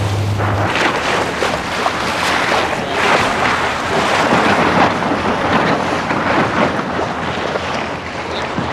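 Wind noise and water on a sailing boat under way: gusts buffet the microphone over the splash of waves. A low steady hum stops about a second in.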